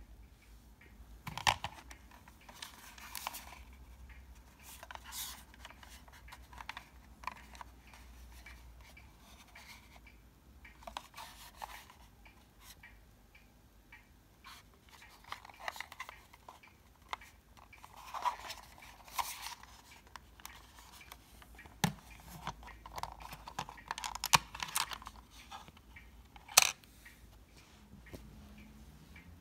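Handling noise from a Philips AQ-6588 portable cassette player: hands rubbing and shifting the plastic case as it is turned over, with scattered clicks from its buttons and switches and a few sharper knocks, the sharpest near the end.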